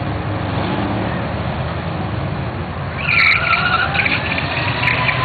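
Drag-racing cars rumbling at the starting line, then about three seconds in a sudden loud burst as engines rev hard and tires squeal on the launch, the engine pitch rising.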